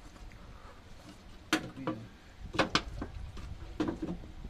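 Small parts and tools being handled by hand: a few sharp clicks and clinks, two of them close together about two and a half seconds in.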